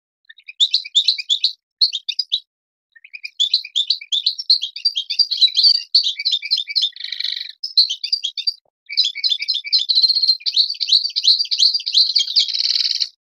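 European goldfinch of the Moroccan Marrakchi line singing: fast twittering phrases broken by short pauses, with a harsher buzzy note about seven seconds in and another near the end, where the song stops abruptly.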